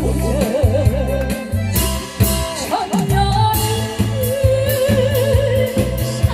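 A woman singing a Korean trot song with wide vibrato on long held notes, over an amplified backing track with a steady drum beat and bass.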